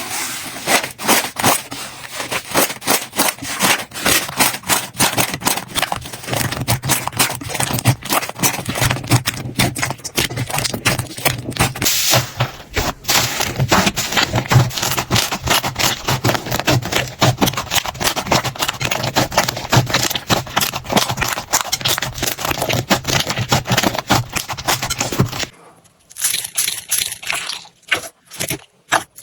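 Slime being squeezed and pressed by hand, giving a dense run of crackling clicks and pops. Near the end the pops grow sparser and more separate.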